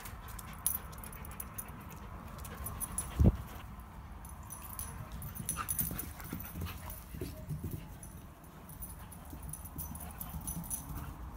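A greyhound cross bounding about on grass: paws thudding and scuffing, with light clicks throughout and one loud thump about three seconds in.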